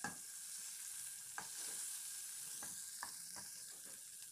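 Butter melting and sizzling in hot oil in a nonstick pan: a faint steady hiss with a few sharp pops.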